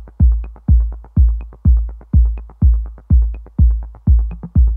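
A song with an electronic beat playing loudly through a Sony HT-S20R soundbar and subwoofer. A heavy kick drum thumps about twice a second, each beat dying away, with a light higher tick about once a second.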